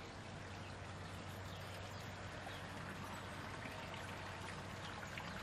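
Wort draining and trickling from a lifted grain basket back into the kettle of an electric all-in-one brewing system, faint, with a low steady hum under it.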